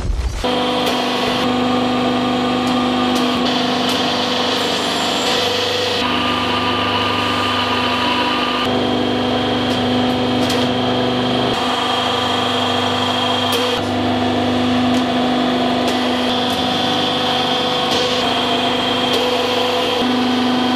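Hydraulic press pump running with a steady machine hum and whine while the ram presses down, its tone shifting a little every few seconds, with a few faint clicks.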